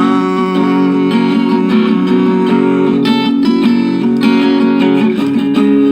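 Instrumental music led by strummed acoustic guitar chords, with no singing.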